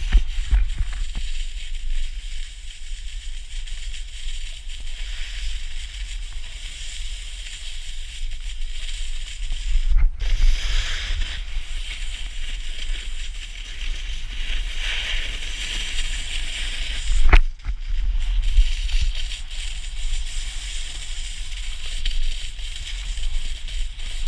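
Snowboard sliding and carving over packed snow: a steady scraping hiss that swells and eases with the turns, under low wind rumble on the pole-held camera's microphone. A single sharp knock comes about two thirds of the way through.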